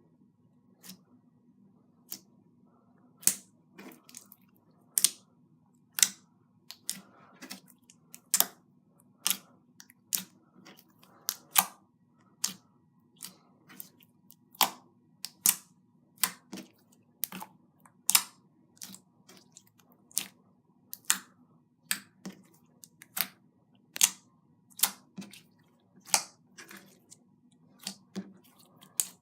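Clear slime being pressed and kneaded by hand while pigment is worked in, giving sharp wet pops and clicks, about one or two a second at an uneven pace.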